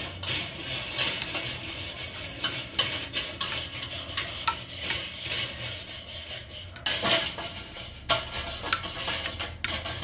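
Wire grill brush scrubbing the steel cooking grate of a charcoal kettle grill in back-and-forth strokes: a rasping metallic scrape with many clicks and rattles against the grate bars, loudest about seven seconds in. This is the grate being cleaned of grease left from an earlier cookout.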